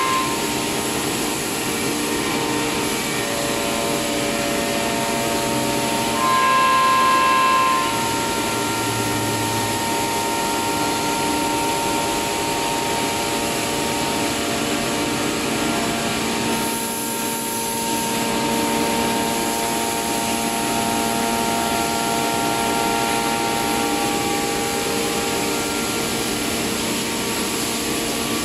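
Changfeng CF-DZ1625ATC1 CNC wood router with its spindle running as the bit cuts a circular groove in a wood panel. A steady machine noise carries several held tones that shift pitch now and then, and it is louder for about a second and a half some six seconds in.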